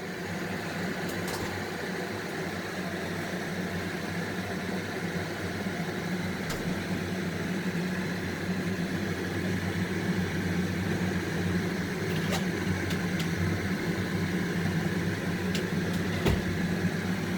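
French toast frying in butter in a pan, under a steady low mechanical hum, with a few faint clicks.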